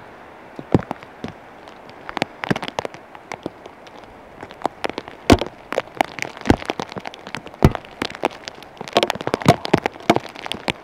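Rain falling, heard as irregular sharp taps of raindrops striking, coming thicker near the end.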